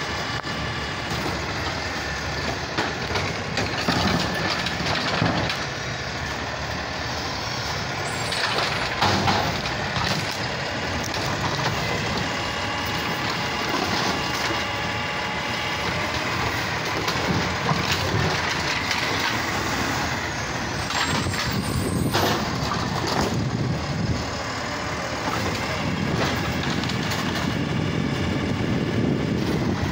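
Automated side-loader garbage truck running while its hydraulic arm lifts a trash cart over the hopper, shakes it empty and lowers it: engine and hydraulic pump whine with a couple of loud clunks, about nine seconds in and again about twenty-two seconds in, and hisses of air.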